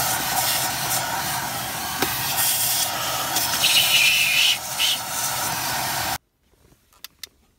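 Vacuum cleaner running, its nozzle sucking dirt out of a car's cabin air filter housing. A higher whistle briefly joins the steady rush of air about four seconds in. The noise stops abruptly about six seconds in, followed by a few faint clicks.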